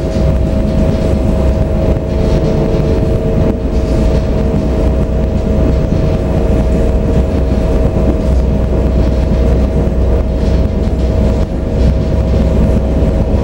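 Končar low-floor electric multiple unit running, heard from inside the passenger cabin: a loud, steady low rumble with a steady whine held at one pitch.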